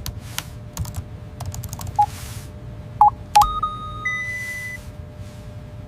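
Keyboard key clicks in quick runs, then a few short electronic beeps about two and three seconds in, followed by a steady electronic tone that steps up in pitch around four seconds in.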